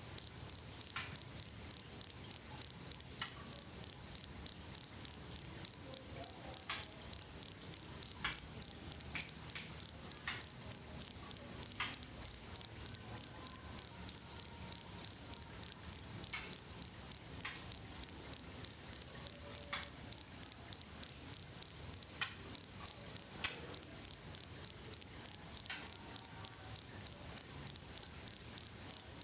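A cricket chirping steadily in an even, high-pitched pulse of about four chirps a second.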